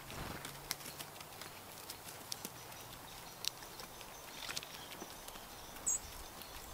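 Blue jays foraging on dry ground and dead wood: scattered, irregular pecking taps and clicks. One brief high bird chirp comes near the end.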